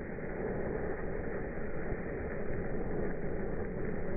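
Ground fountain firework spraying sparks: its hiss comes out as a deep, steady rumbling noise, slowed down along with the slow-motion footage.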